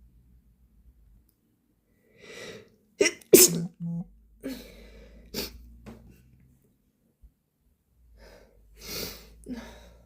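A person's wet sneeze: a breathy inhale, then a loud, sharp sneeze about three seconds in. Heavy breaths follow, rising again near the end.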